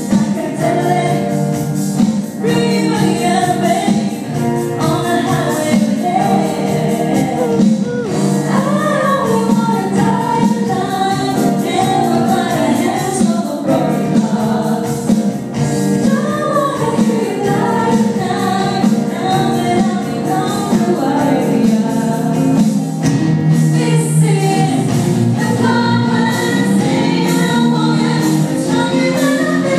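Group of voices singing gospel-style music over steady instrumental backing, continuous at an even level.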